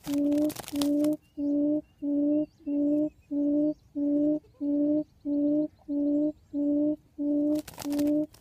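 Low hooting quail call repeated evenly, about two hoots a second, the lure call that draws quail to the trap. A brief rasping noise sounds at the start and again near the end.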